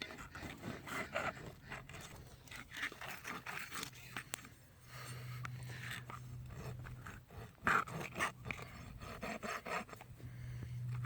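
Irregular scraping, clicks and knocks of hand work on a car battery's posts and terminals, metal scraping on metal, with a low hum that comes and goes.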